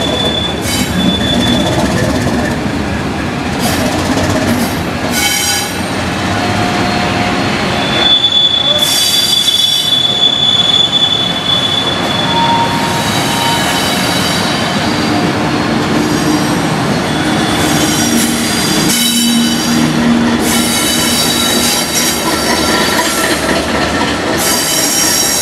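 A train running on the rails with its wheels squealing in thin, high, steady tones, strongest from about eight to twelve seconds in, over the loud running noise of the train.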